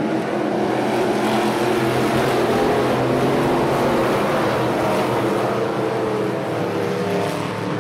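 A pack of street stock race cars running hard together on a dirt oval, many engines blending into one steady, loud sound.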